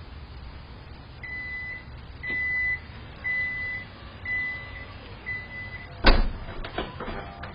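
Five evenly spaced electronic beeps, about one a second, each about half a second long. About six seconds in comes a loud sharp knock, followed by a few lighter knocks near the end.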